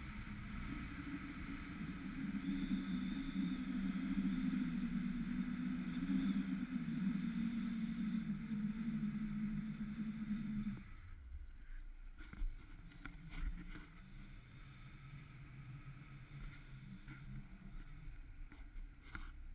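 Zipline trolley wheels rolling along a steel cable, a steady whirring hum with a thin high whine above it. About eleven seconds in the sound drops sharply to a much quieter hum. A few short knocks follow in the quieter part.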